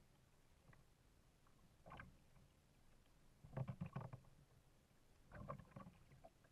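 Kayak paddle strokes: the blade dipping and pulling through the water with splashes and drips, three strokes, the second and third louder, over a quiet background.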